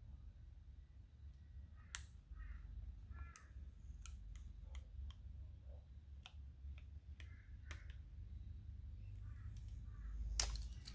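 Faint scattered clicks and light taps from handling a small lure and sticker sheet, with bird calls in the background and a louder crinkle near the end.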